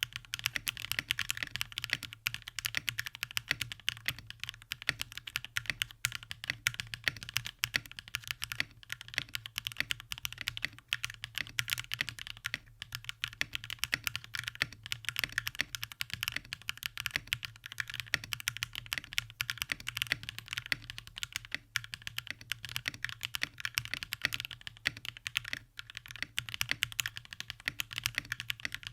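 Continuous fast typing on a keyboard with Akko Mirror linear switches in an aluminium plate and case with PBT keycaps: a dense, unbroken run of clacky keystrokes. A faint steady low hum sits underneath.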